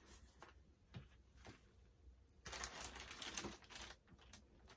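Faint clicks and knocks of things being handled, then a plastic shopping bag rustling for about a second, starting halfway through.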